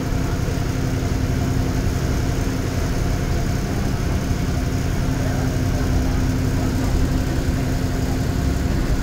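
Ashok Leyland bus diesel engine running steadily as the bus climbs a ghat road, heard from the driver's cab: a steady low rumble with a constant hum over it.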